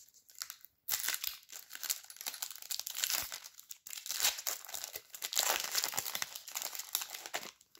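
A Skybox Metal Universe Avengers trading-card pack being torn open, its wrapper crinkling in rapid, irregular crackles that start about a second in and run until near the end.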